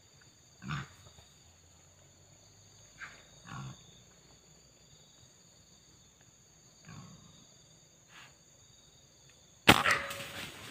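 A single rifle shot near the end, a sharp crack followed by a short ringing tail, aimed at a long-tailed macaque. Before it, a few short faint sounds.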